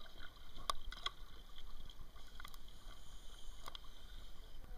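A few sharp knocks and clicks of gear being handled aboard a small boat, over a low steady rumble.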